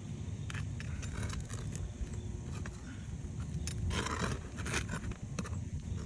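Metal pry bar clicking and scraping against asphalt roof shingles and their nails as a nail is worked loose. There are scattered light clicks, and two short scrapes about four and nearly five seconds in.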